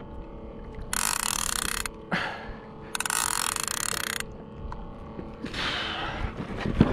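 Spinning fishing reel ratcheting in two bursts of about a second each, one about a second in and one about three seconds in, as line works under a hooked fish's pull. A softer rushing noise follows near the end.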